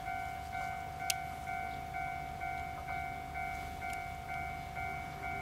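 Electronic level-crossing warning bell ringing in an even, repeating ding a little over twice a second, signalling that a train is approaching. A low rumble runs underneath, and a single sharp click comes about a second in.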